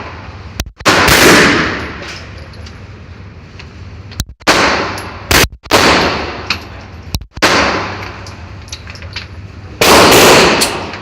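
Pistol shots, about five, fired slowly and unevenly one to three seconds apart, each followed by a long echoing tail. Fainter sharp cracks sound in between.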